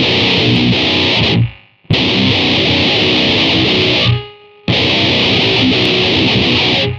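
Distorted electric guitar playing a heavy riff, recorded direct through an effects processor into an audio interface. The riff stops dead twice, about a second and a half in and again about four seconds in, with short pauses before it starts again.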